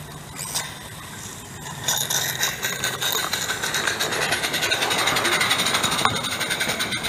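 Accucraft Ruby live-steam locomotive running along garden-railway track, a rapid, even beat of exhaust and wheel clatter that grows louder about two seconds in.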